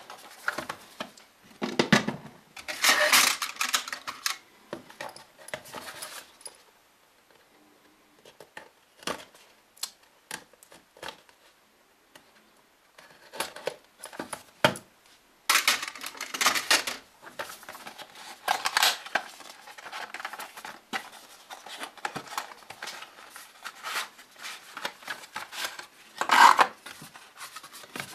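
A small cardboard retail box being handled and opened, its seal slit with a small metal tool and a plastic inner tray taken out: irregular scrapes, taps, clicks and rustles, with a quieter stretch in the middle.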